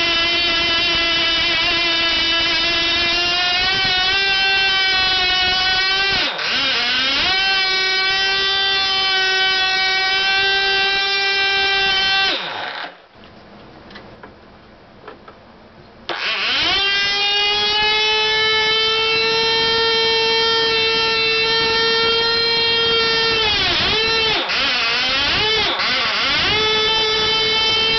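Picco 12 Turbo model glow engine, an ABC three-port nitro two-stroke, running at high rpm with a steady high-pitched scream. Its pitch sags briefly about six seconds in. About twelve seconds in its pitch falls and it cuts out; after about three seconds it starts again and runs at a higher pitch, sagging briefly once more near the end.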